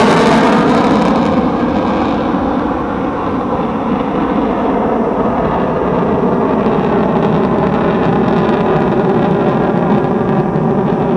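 Jet noise from a Belgian Air Force F-16 Fighting Falcon's single turbofan engine as the jet manoeuvres in a display. The sound is loud and continuous with a slow phasing sweep; its hissing top end drops away about two seconds in, leaving a steady rumble.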